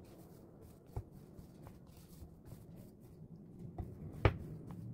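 Silicone spatula scraping and mashing soft baked potato flesh in a glass bowl, with a few sharp knocks against the glass, the loudest about four seconds in.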